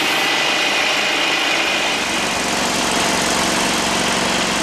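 Small lawnmower engine running steadily on methane gas instead of petrol, under load as it drives a rapeseed press through belts and pulleys, with a steady high whine over the engine note.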